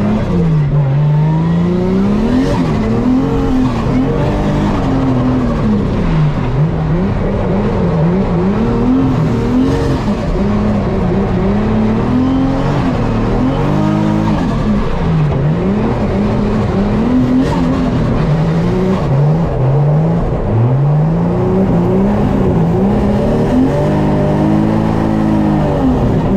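Toyota GT86's engine heard from inside the cabin, revving up and down over and over as the car is driven hard through gear changes. Near the end it holds high revs for a couple of seconds before dropping.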